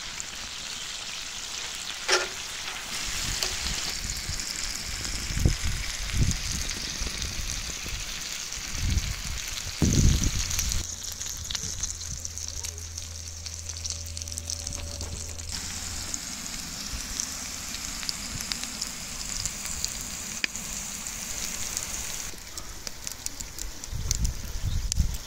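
Seafood sizzling on a hot steel plancha over a wood fire, a steady hiss with occasional low thumps. The hiss thins for a few seconds around the middle while a low hum sounds.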